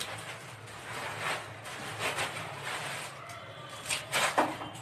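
Close-up chewing of a raw green chilli: soft, wet crunching. About four seconds in come two louder crisp crunches as a bite is taken from a raw onion.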